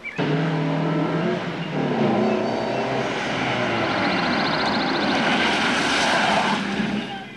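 Car engine running as the car drives, its pitch shifting up and down. It starts abruptly and drops away near the end.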